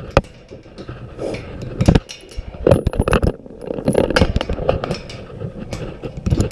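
Irregular metallic clinks, clanks and scrapes of steel pen gates and a gate chain.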